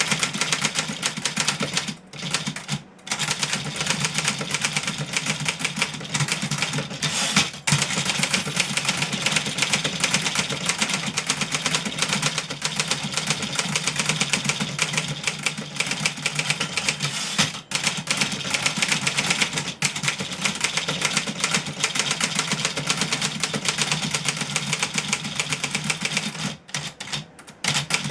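1963 Remington Model 11 portable typewriter being typed on fast: a rapid, steady clatter of keystrokes, broken by a few brief pauses.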